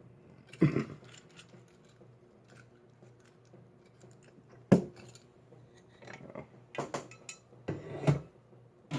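Small metal parts and tools being handled and set down, clinking: one knock about half a second in, a sharp click near the middle, then a run of clicks and clatters in the last three seconds.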